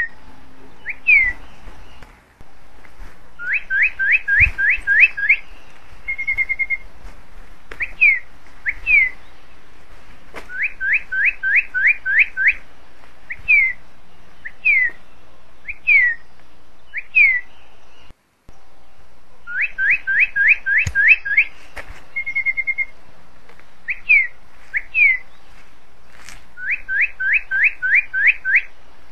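High, bird-like whistled chirps: single falling notes, then quick runs of about seven rising notes and a short steady trill. The same phrase repeats about every sixteen seconds, with a brief dropout just before each repeat.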